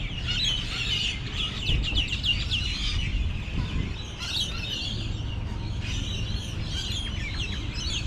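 Small birds chirping in quick rapid runs, over a steady low rumble.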